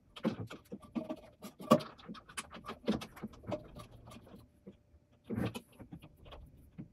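Handling noise from a submersible pump and its foam floats being turned and repositioned on a floating sumpster's bracket: a string of light knocks, clicks and scrapes, with a longer rub a little after five seconds in.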